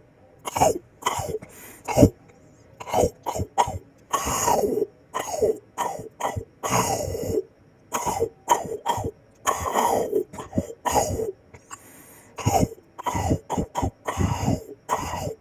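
Exaggerated ASMR-style eating sounds: wet chomping and squelching broken up by short throaty grunts that fall in pitch, in irregular bursts about once or twice a second.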